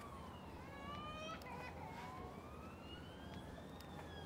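A faint wailing siren, its pitch rising slowly over several seconds and then falling again, over a low steady hum.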